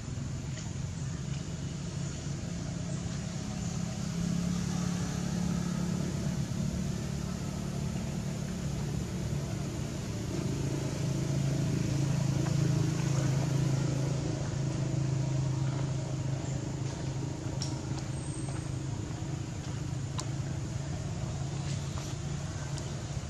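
Low, steady engine hum of a motor vehicle running, shifting in pitch and growing louder around the middle, over a background of outdoor noise.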